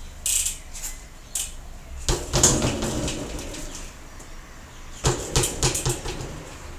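BMX bike lifted and dropped onto the ground in a drop test, a check for rattles from loose parts: a hard landing about two seconds in with a short ringing decay, then a quick run of knocks about five seconds in. The bike sounds tight, which the rider calls "pretty dialed".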